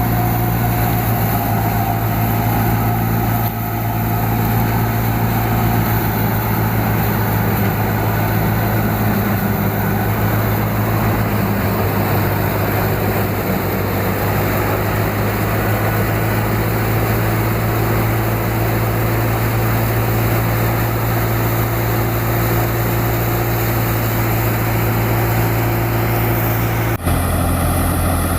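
Tractor engine driving a wheat thresher, running at a steady drone with the thresher's constant noise over it. Near the end the sound changes abruptly to a slightly different steady drone.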